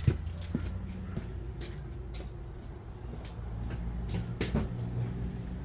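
A few light clicks and clunks, then a low mechanical whirr that builds about three and a half seconds in: the Mazda RX-8's rotary engine being turned over on the starter for a compression test of the front rotor.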